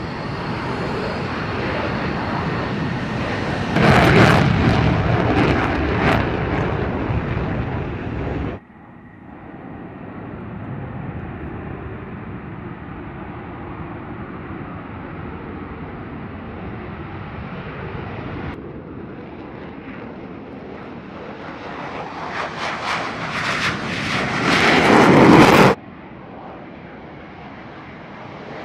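F-16 fighter jets' engines on the takeoff roll: a jet roar that swells as each aircraft goes by, loudest about four seconds in and again near the end. The sound comes in several spliced shots that cut off abruptly, with a quieter stretch of distant jet noise in the middle.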